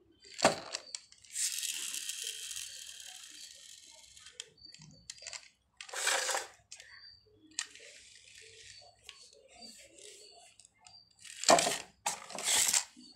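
Plastic toy packaging and a toy jeep being handled: a sharp knock about half a second in, then a few seconds of plastic crinkling that fades away, and more short rustles and knocks of plastic near the end.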